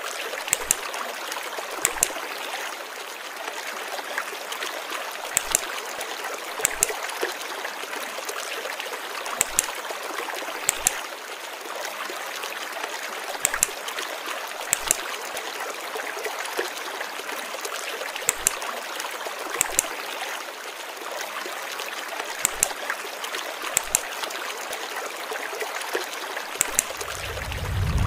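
Steady rushing and trickling of flowing stream water, with a pair of sharp knocks about a second apart recurring roughly every four seconds. Just before the end a loud low rumble comes in.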